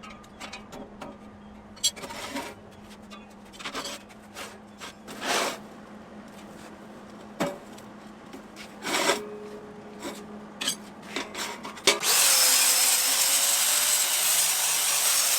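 Sheet-steel stove parts being handled, with scattered scrapes and knocks over a steady low hum, then a loud, steady hiss of about four seconds beginning about twelve seconds in.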